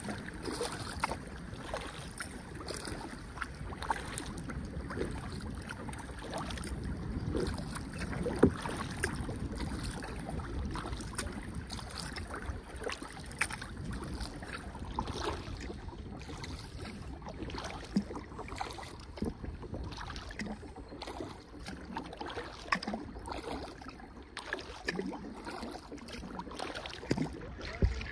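Kayak being paddled on a river: repeated splashes of the paddle blades dipping into the water, over a steady wash of water against the hull.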